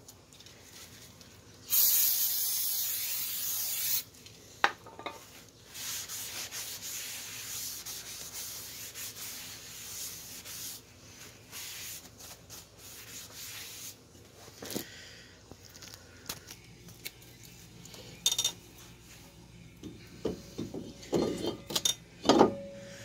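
Aerosol brake cleaner sprays in one burst of about two seconds onto a new brake rotor, then a rag rubs and wipes the rotor face for several seconds, degreasing off its protective Cosmoline coating. Near the end come a few light metallic knocks and clinks.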